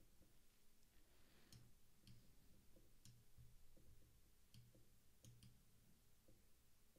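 Near silence: faint room tone with a few soft, irregularly spaced clicks.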